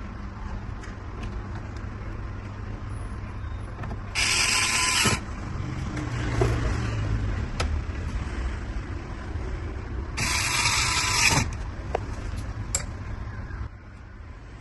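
Screwdriver working the PC's screws in two runs of about a second each, with scattered clicks of parts being handled in between.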